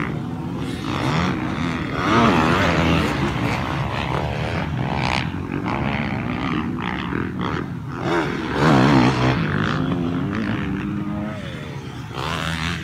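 Motocross dirt bike engines revving hard and easing off over the track's climbs and jumps, rising and falling in pitch, loudest about two seconds in and again near nine seconds.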